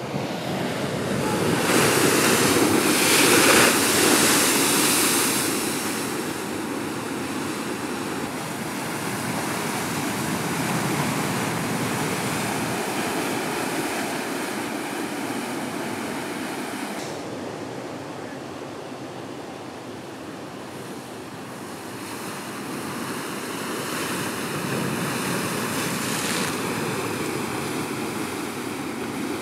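Ocean surf breaking and washing around a rocky shore ledge, a continuous rush that surges loudest a couple of seconds in and swells again near the end.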